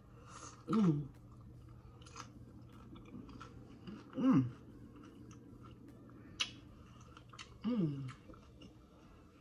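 Close-up chewing of a crunchy hard-shell corn taco, with a few sharp crisp crunches. Three times the eater gives a short hum that falls in pitch, about a second in, near the middle and near the end; these are the loudest sounds.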